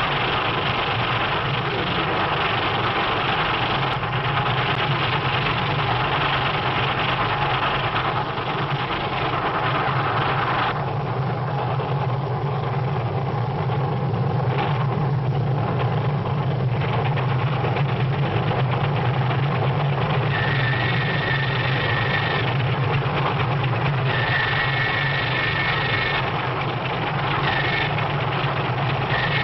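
Steam locomotive running at speed on an early sound-film track: a steady, dense rumble and clatter. Twice in the latter half, about 20 and 24 seconds in, a long high steady whistle tone sounds.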